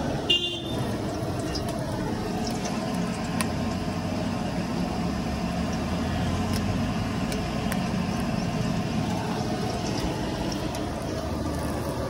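Steady background noise of a busy roadside food stall, with traffic going by and faint clicks of utensils. A short ringing metallic clink sounds just after the start.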